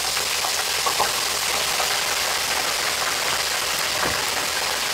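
Crinkle-cut French fries sizzling in the hot oil of an electric deep fryer as the wire fry basket is lowered in. The sizzle is a steady hiss, with a couple of faint clicks.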